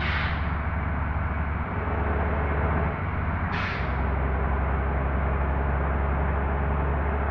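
Bus engine running with a steady low drone, and two short hisses falling in pitch, one at the start and one about three and a half seconds later.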